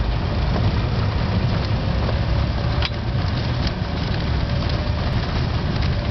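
Citroën Méhari's air-cooled flat-twin engine running as the open car drives along a gravel track, heard from the driver's seat as a steady low rumble, with a brief click about three seconds in.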